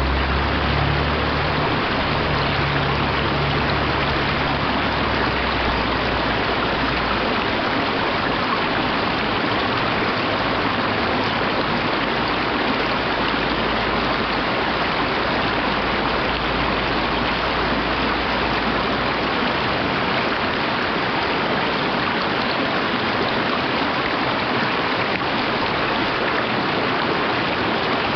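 Mountain stream running over rocks: a steady, even rush of water. A low rumble underneath fades away over the first several seconds.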